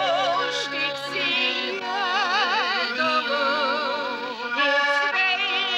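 Music: a tune of long held notes with vibrato.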